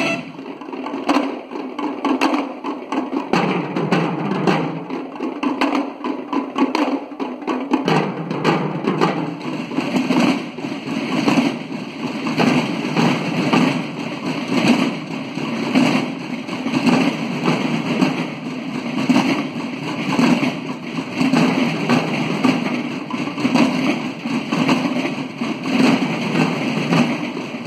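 Marching drums of a school bugle-and-drum corps playing a steady, rhythmic cadence, with no bugles sounding.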